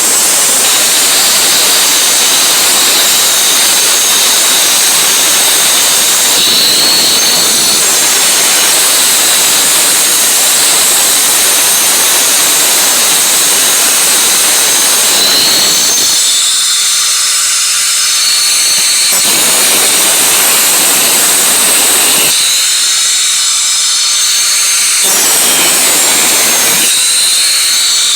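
Power grinder running against sheet steel: a loud hissing grind over a high steady whine. In the second half the grinding noise drops away three times for a few seconds, leaving only the whine of the free-spinning tool.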